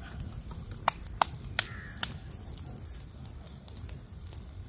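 Open wood fire crackling: four sharp pops in the first two seconds over a low steady rumble.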